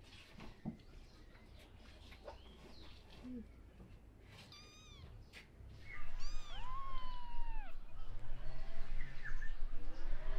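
Newborn kittens mewing: thin, high-pitched mews, a few short ones about halfway through, then a longer mew that falls in pitch, louder from about six seconds in.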